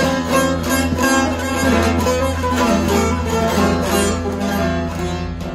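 Divan bağlama with a padauk bowl and spruce top, played solo: quick picked and strummed notes over a steady low drone of the open strings.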